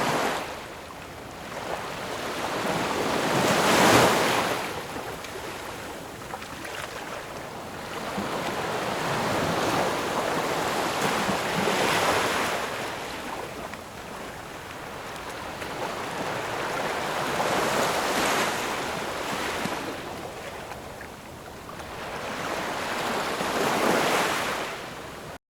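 Ocean waves breaking and washing in, swelling and fading four times, one wave every six to eight seconds; the loudest breaks about four seconds in.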